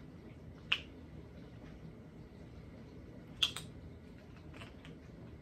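Sharp plastic clicks as acrylic paint bottles are handled: one snap about a second in, a louder double snap past halfway, then a few fainter ticks.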